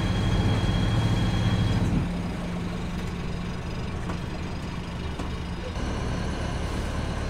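Sailboat's inboard engine running at low revs while motoring, louder for the first two seconds, then dropping to a lower steady running note.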